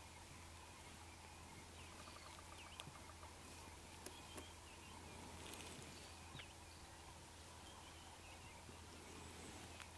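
Quiet outdoor ambience: faint bird chirps every second or two over a low steady hum, with a few soft clicks.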